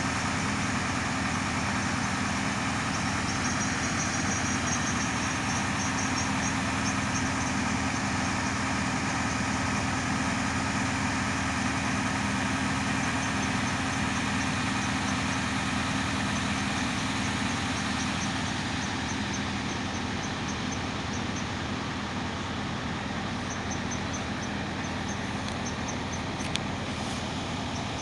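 Hydraulic excavator's diesel engine running steadily, with a low even hum. A faint, rapid, high-pitched ticking comes and goes over it.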